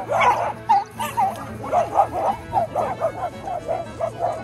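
A pack of small dogs yapping and barking excitedly as they chase a lure, many short high yips overlapping several times a second.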